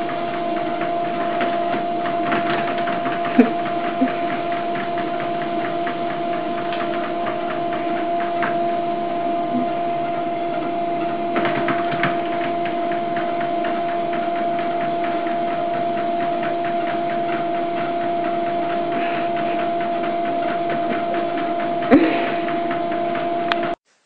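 A steady mechanical hum at one constant pitch, with scattered clicks and a couple of sharper knocks. It cuts off suddenly near the end.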